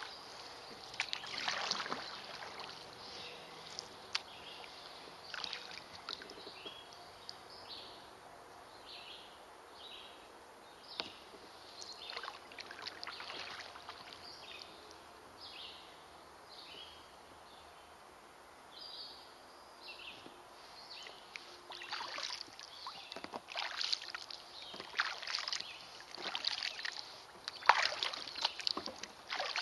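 Kayak paddle strokes splashing and dripping in the water, with a quieter middle stretch and quicker, louder strokes near the end. Through the quiet middle stretch there is a run of short high chirps, about one a second.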